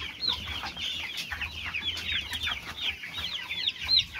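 A brood of young broiler chicks peeping: many overlapping high, short chirps, several a second.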